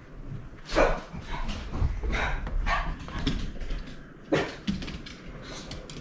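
A dog barking repeatedly in a string of short, sharp barks, with a brief pause about four seconds in; the dog is barking at heavy rain on the roof.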